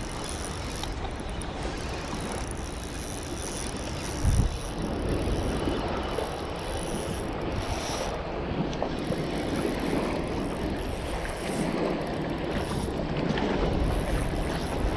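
Small spinning reel being cranked steadily, a mechanical whirring, with wind buffeting the microphone about four seconds in and again near the end.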